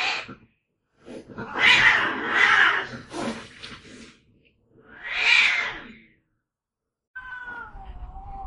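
Cat vocalizing: a harsh, noisy call of about two seconds starting about a second in, then a shorter one about five seconds in. A falling pitched call begins near the end.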